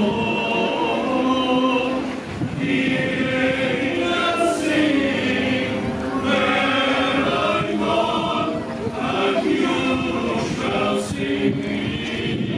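A choir singing a slow song in long held notes.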